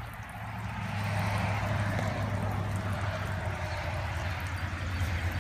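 Old bulldozer's engine running steadily with a low hum, growing louder about a second in.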